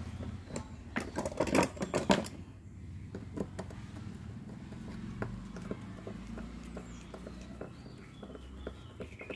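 Workshop clatter from hands-on repair work: a quick cluster of metallic knocks and rattles about a second in, then scattered light clicks and ticks over a low steady hum.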